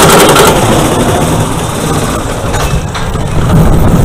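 Zamperla kiddie roller coaster train finishing its chain lift, with rapid lift-chain clicking that stops about half a second in. The train then rolls down onto the steel track with a rough rumble that swells again near the end as it gathers speed.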